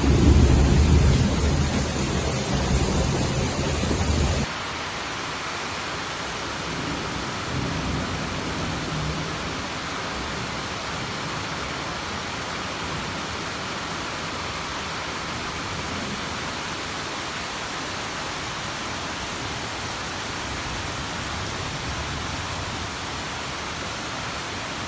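Heavy rain pouring, a steady even hiss. For the first four seconds or so a loud low rumble sits under it, then cuts off abruptly.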